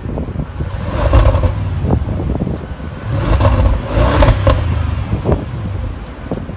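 2017 Audi S8 Plus's 4.0-litre twin-turbo V8 exhaust in normal mode, revved twice from idle, each rev rising and dropping back, with a few sharp cracks as the revs fall.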